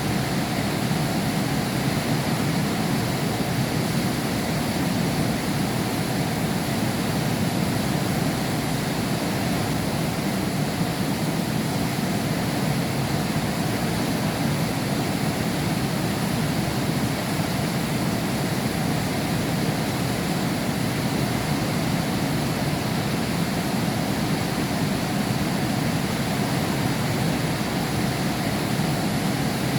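Heavy rain falling steadily, a dense unbroken hiss heard from behind window glass.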